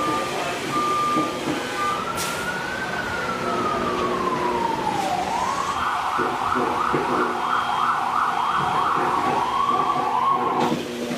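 Emergency vehicle siren: a long wail that slides down in pitch, then switches to a rapid yelp of about three sweeps a second that cuts off abruptly. Before the siren, a steady pitch sounds in short repeated beeps.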